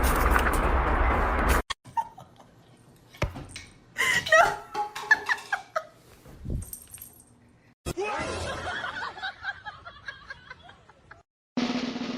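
People laughing, in several short stretches broken by abrupt cuts, with a loud noisy stretch at the start.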